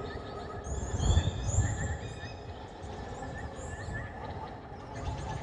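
Sci-fi alien-jungle ambience: strings of quick, high, repeated chirps like insects or birds over a steady hiss, with a low rumbling swell about a second in.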